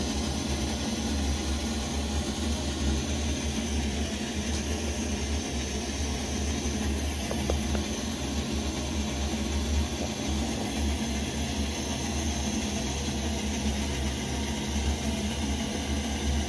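Coleman 533 pressurized gasoline stove burning with a steady, rumbling roar, its flame still tall and yellow while the burner warms up.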